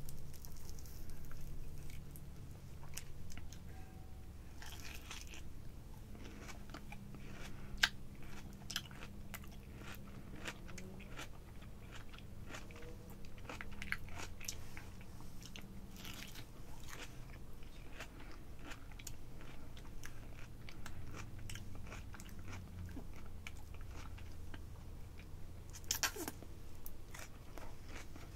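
Close-miked ASMR eating of apricot: wet bites and chewing, made up of many small sharp clicks, with a louder burst near the end.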